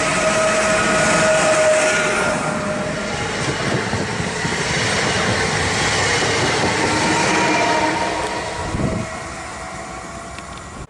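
Pesa Elf EN76 electric multiple unit passing close by: a loud rush of wheel and rail noise with steady whining tones over it. The sound drops away about nine seconds in as the last car goes by.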